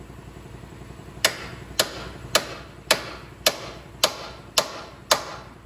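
Hammer striking steel eight times at an even pace of about two blows a second, each blow ringing briefly.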